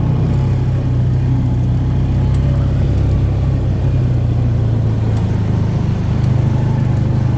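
Vehicle engine running steadily at an even pitch, heard from on board.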